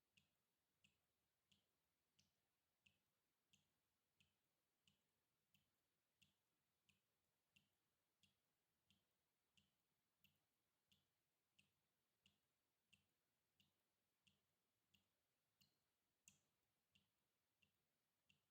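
Water dripping very faintly in a steady, even rhythm, about three drops every two seconds. Each drop is a short plink. One drop about 16 seconds in is a little louder than the rest.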